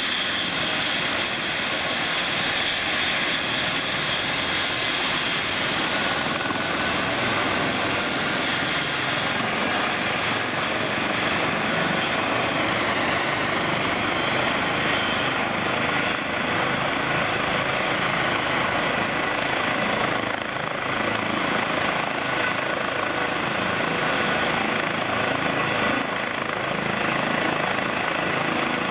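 Twin-turbine Eurocopter EC135 helicopter running on the ground with its rotor turning, before an emergency takeoff: a steady, loud turbine whine over the rotor and fenestron noise.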